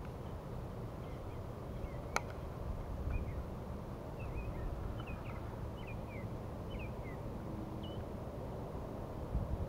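Small birds chirping in a string of short, quick notes, over a steady low rumble, with one sharp click about two seconds in.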